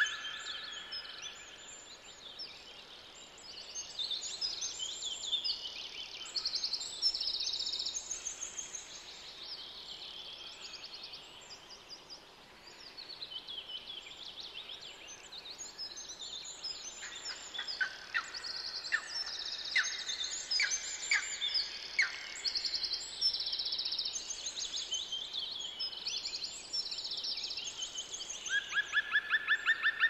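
Several songbirds chirping and singing, with short high notes overlapping throughout. A fast, rattling trill fades out in the first second and starts again, louder, near the end.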